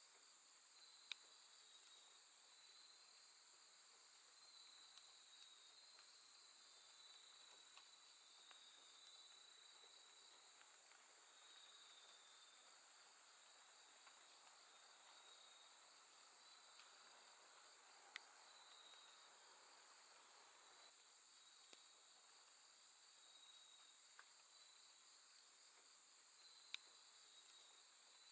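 Faint late-summer night chorus of crickets and other grass insects: a steady high trill, with a higher pulsed chirping that comes and goes, busiest in the first third and again near the end. A few faint sharp clicks are scattered through it.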